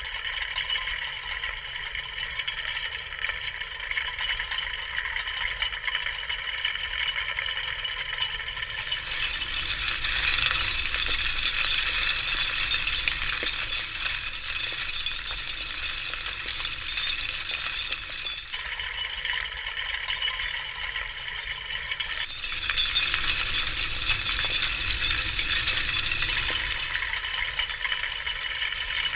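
Underwater sound of a towed bottom trawl: a continuous hissing rattle with clinking from the netting and ground gear. It grows louder and brighter twice, from about nine seconds in and again past twenty seconds.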